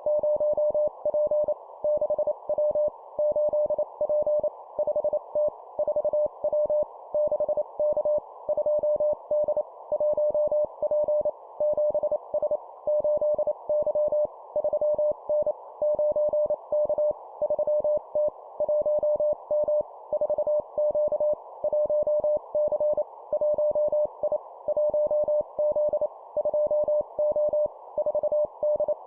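Morse code (CW) practice tone keyed at 25 words per minute, sending letter-and-number groups. It is a single steady pitch broken into rapid dots and dashes over a continuous band of hiss, like a signal heard through a receiver.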